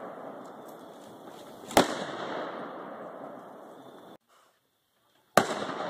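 Two gunshots from the range, a few seconds apart, each followed by a long echo that fades away. The sound drops out to dead silence for about a second just before the second shot.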